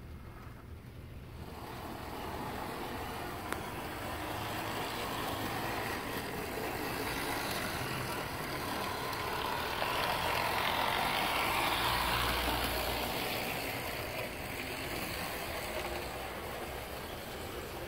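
Model diesel locomotive running on the layout track: the whir of its small electric motor and the rattle of its wheels. It grows louder from about two seconds in, is loudest around ten to twelve seconds in as it passes close, then fades.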